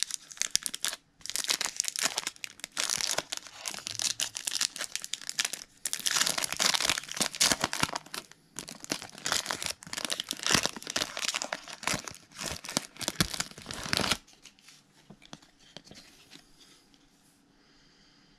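Foil wrapper of a Panini Flux basketball card pack being torn open and crinkled, a dense crackling with a few short pauses that stops abruptly near the end, leaving only faint handling of the cards.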